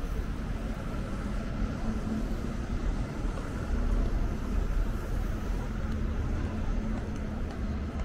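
Busy city ambience: a steady low rumble with a faint constant hum underneath and no single sound standing out.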